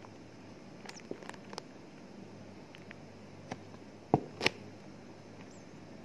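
Scattered taps and rustles from handling a cardboard tissue box lined with tissue paper, with two sharp knocks close together about four seconds in, and a faint high squeak near the end.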